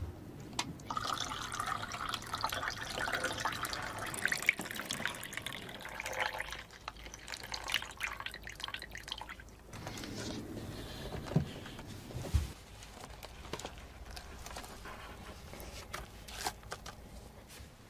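Liquid gurgling and dripping, with a couple of short knocks a little past the middle.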